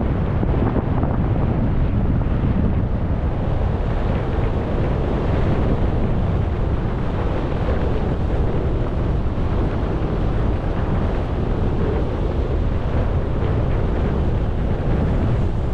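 Steady wind buffeting the microphone of a skier's camera moving downhill at speed, a dense, low rumble with no let-up.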